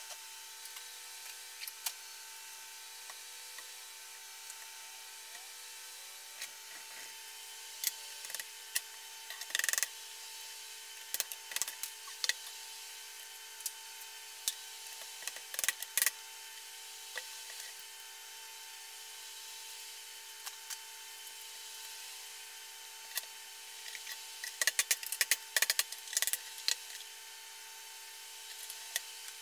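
Short sharp metal taps and clinks, some single and some in quick clusters with the densest run near the end: a hammer tapping a socket to drive wrist pins out of pistons held in a bench vise, with the pistons handled in between. Under them runs a steady faint hum.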